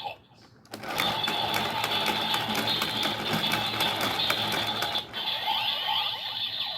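Toy transformation belt (DX Build Driver) with its side lever being cranked: a fast, even ratcheting clatter over the belt's steady electronic tones, starting about a second in and stopping about five seconds in. Gliding electronic tones from the belt follow near the end.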